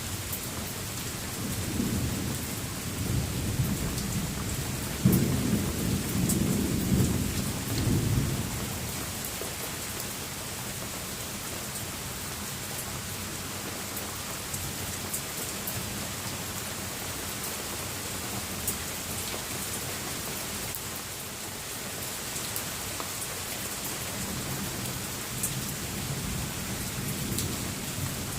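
Steady rain falling, with rolling thunder rumbling low, loudest about five to eight seconds in and building again near the end, and scattered drips ticking.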